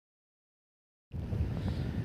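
Dead silence for about the first second, then a steady low rumble and hiss of wind on a phone microphone starts suddenly.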